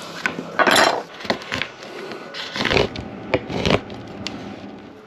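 Irregular handling noises: knocks, clicks and scrapes of objects being moved about, with the loudest clatters about a second in and again around three and four seconds.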